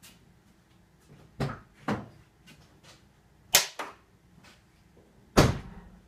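Mercedes-Benz W163 hood latch clacking as it is repeatedly tripped shut and released by the release cable. There are five sharp clicks in pairs, and the loudest come about halfway and near the end. The new latch and cable are working properly.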